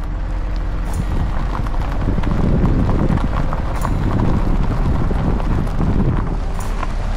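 Vehicle driving on a gravel back road: a steady rumble of tyres crunching over gravel, with small stones ticking and clicking throughout.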